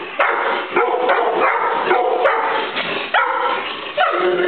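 Several pet dogs yelping, whining and barking excitedly, short high calls coming one after another and overlapping.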